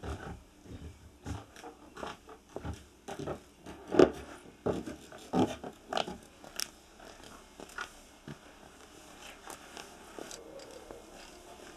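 Irregular knocks, scuffs and clicks of movement indoors: footsteps and handled objects. The loudest knock comes about four seconds in, more follow up to about six seconds, then it settles to faint room noise.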